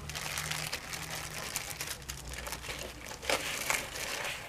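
Crinkling and rustling of plastic-wrapped first-aid and emergency supplies being handled and packed into a bag pouch, with a couple of sharper crackles near the end.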